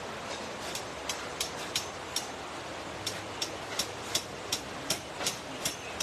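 Hammer striking nails into timber, regular blows about two to three a second, over a steady background hiss.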